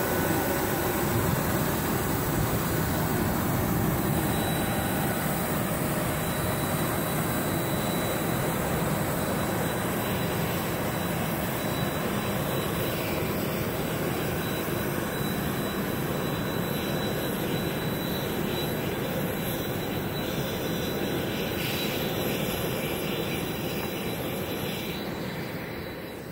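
Steady turbine whine and rush from a parked Embraer E190 jet, with a thin high tone held over the noise. The sound fades out near the end.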